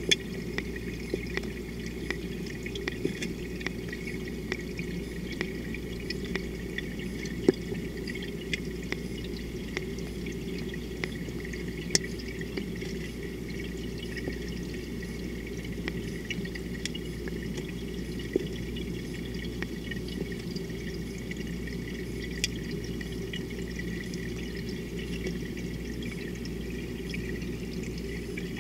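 Steady running, pouring water with a few sharp clicks scattered through it.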